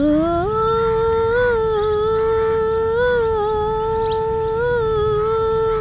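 A woman's voice holding one long sung note for over five seconds, unaccompanied. It rises in pitch over the first half-second, then holds steady with a slight waver.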